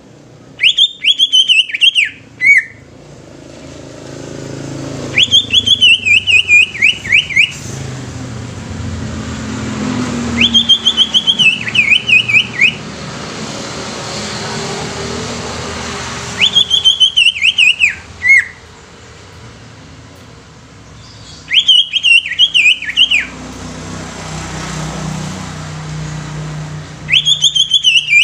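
Caged green leafbird (cucak ijo) singing loud phrases of rapid, falling whistled notes. Each phrase lasts under two seconds and is repeated about every five seconds, six times, over a low rumble that rises and falls underneath.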